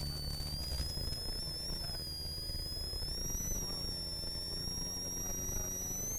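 Ford Sierra RS Cosworth's turbocharged four-cylinder engine running under load, heard from inside the cabin, with a high turbo whistle that rises and falls with engine speed.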